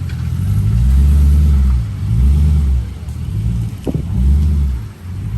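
2017 Dodge Durango R/T's 5.7-litre HEMI V8 revved three times, the engine note rising and falling with each blip of the throttle.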